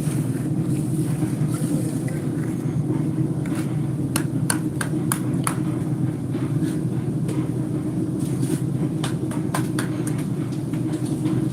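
Concrete mixer's engine running steadily, with a scatter of sharp knocks and clicks in two bunches, the first about four seconds in.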